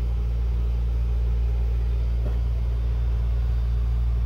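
A steady, unchanging low rumble with a hum in it, with one faint tap a little past two seconds in.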